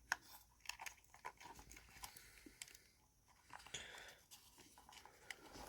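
Near silence with scattered faint clicks and rustles of small plastic parts and wire being handled while a fan lead is fed through an RC receiver box and plugged in.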